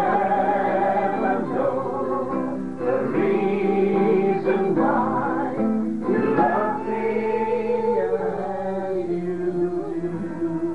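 Men singing together in drawn-out held notes, with an acoustic guitar accompanying.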